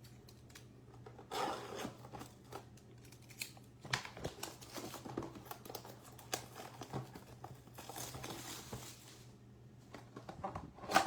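A blaster box of baseball cards being unwrapped and opened by hand: plastic wrap and cardboard rustling and tearing in irregular scrapes and clicks, with one sharp knock near the end.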